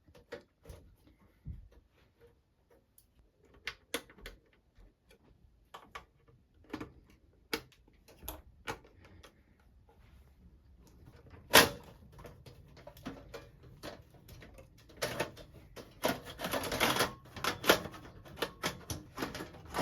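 Irregular clicks and knocks of a Pace Sky+ box's casing being handled and worked open, with one loud knock about halfway through and a dense burst of rattling clatter near the end as the cover comes free.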